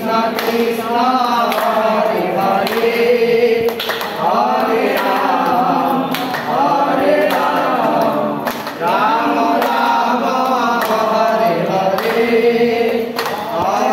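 A group of devotees singing a devotional chant together, with hand claps through it.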